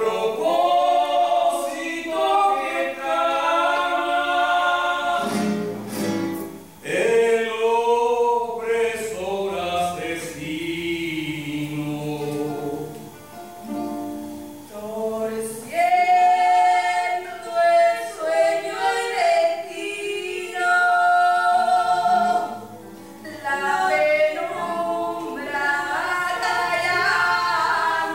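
A group of voices singing a song in long held notes, phrase after phrase, with acoustic guitar under them; the singing breaks briefly between phrases twice.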